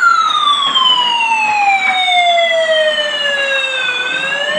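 Toy fire truck's electronic siren wailing. The pitch falls slowly for about four seconds from a peak at the start, then begins to rise again near the end.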